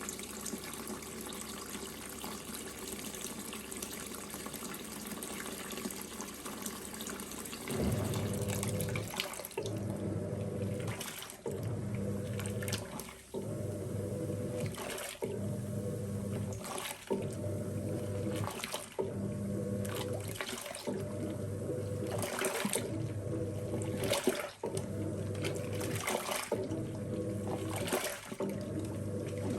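Water pouring into the drum of a Costway 4.5 kg top-load washing machine. About eight seconds in, the wash motor starts agitating: a motor hum that stops and restarts roughly every two seconds as the wash action reverses direction, with water sloshing through the load.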